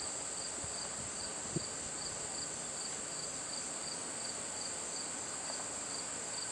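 Background insects singing: a steady high-pitched drone with a second, pulsing trill repeating about three times a second. There is a single soft tap about one and a half seconds in.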